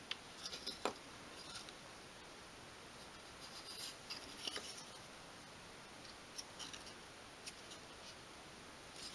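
Faint clicks and light taps of small thin obeche wood pieces being handled and pressed together by hand, with a few light rubs. A cluster of clicks comes in the first second, more around four seconds in, and a few scattered ones later.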